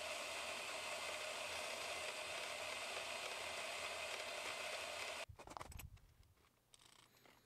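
Harbor Freight handheld saw mounted as a table saw, its motor and thin blade running steadily while cutting a small metal part. The sound cuts off suddenly about five seconds in, leaving only a few faint clicks.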